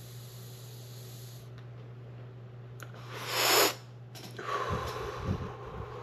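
A person's breathing while taking and blowing a vape hit: a short, sharp rush of breath about three seconds in, the loudest sound, then a longer, softer breath about a second later. A steady low hum and hiss sit underneath.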